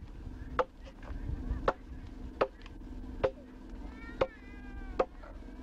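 Hand adze chopping into a block of wood: about six sharp strokes, a little under a second apart, as the rough shape is blocked out and the bark removed. A drawn-out animal call sounds behind the strokes near the end.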